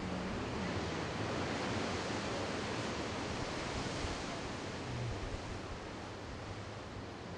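Steady rush of ocean surf and wind, with a faint low hum underneath.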